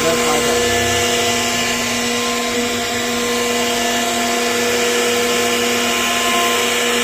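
CNC router spindle running steadily while carving wood: a constant high whine with several held tones over a noisy cutting hiss.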